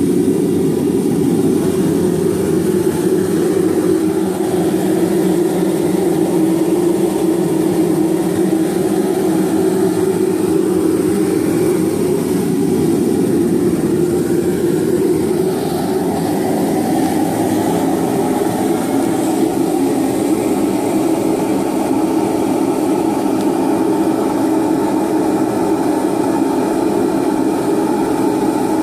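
Homemade three-burner propane forge running at full heat: the steady rushing noise of three venturi burners, fed through MIG welder tips as gas jets, firing into a firebrick chamber.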